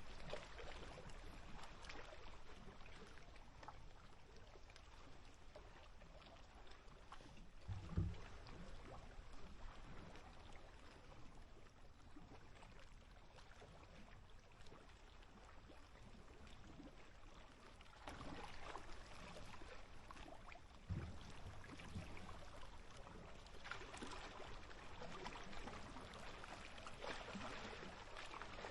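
Small waves lapping and popping against the lake's edge, a faint patter of little splashes and clicks, with a short low thump about eight seconds in and another about three quarters of the way through.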